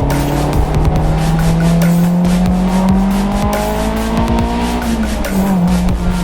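Honda S2000's four-cylinder VTEC engine pulling under acceleration while driving, its note rising steadily through a gear. A little after five seconds the pitch drops quickly, as at an upshift, then holds steady.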